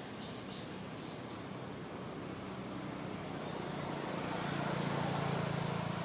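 A road vehicle approaching and passing: its engine hum and tyre noise grow louder through the middle and are loudest near the end.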